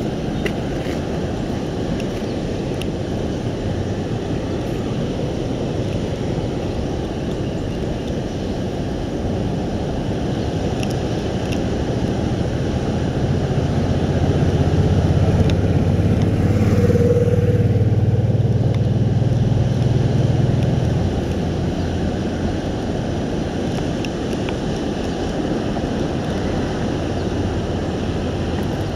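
Steady low rumbling background, with an engine hum that swells about halfway through and fades away again several seconds later, as of a motor passing.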